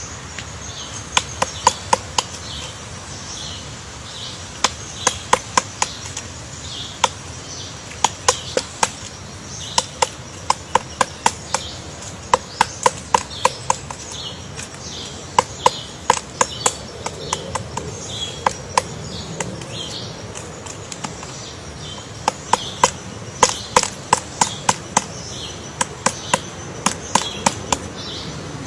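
Woodpecker pecking at wood: sharp single taps in irregular clusters, roughly three a second, with short pauses between clusters.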